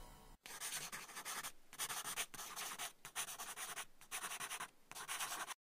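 Pen-on-paper writing sound effect: a hissy scratching in about six strokes with short breaks between them, which stops abruptly shortly before the end.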